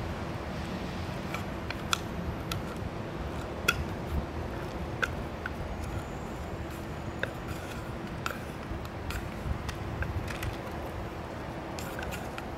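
A cat eating from a plastic tray: scattered small, sharp clicks of chewing, about one a second, over a steady low outdoor rumble with a faint hum.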